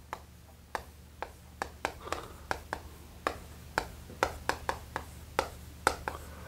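Chalk tapping and scratching on a chalkboard while Korean characters are written: a run of sharp, irregular ticks, about three a second, with short scrapes between them.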